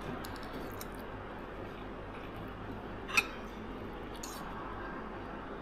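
Light clinks of tableware during a meal over a steady low room hum: a few faint small clicks, then one sharper clink about three seconds in and a softer one a second later.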